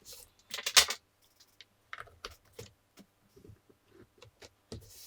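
Hands working bench test gear: a quick cluster of sharp clicks just under a second in, then scattered light clicks and taps as the power is switched off and a multimeter's leads and range selector are set.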